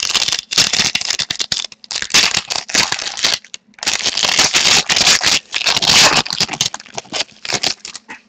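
Plastic card-pack wrapper and card sleeves crinkling and crackling as trading cards are handled, in loud irregular bursts with a few short pauses.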